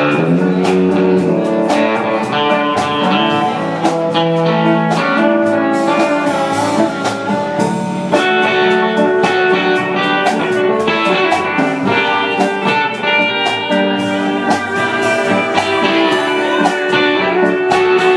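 Live country band playing an instrumental break: electric guitars and pedal steel guitar over bass and drums, with no singing.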